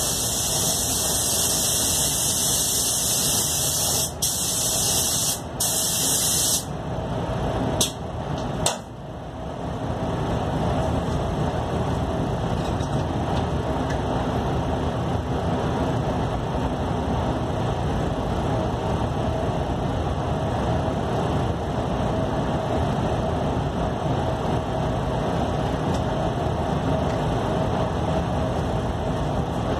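Iwata Supernova spray gun hissing as it lays clear coat, with two brief breaks where the trigger is let off; the hiss stops about a third of the way in, followed by two short puffs. A steady drone of the spray booth's ventilation runs underneath throughout.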